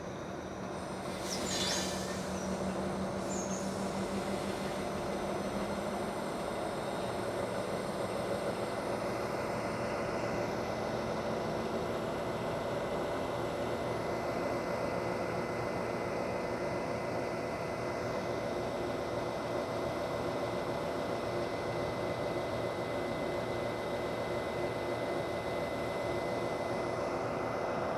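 Diesel freight locomotive running steadily with its wagons, with a brief rattle about two seconds in and a thin high steady tone through the second half.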